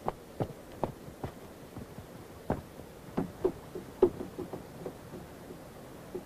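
A series of soft knocks, evenly spaced at about two a second at first, then coming in irregular clusters, the loudest about four seconds in.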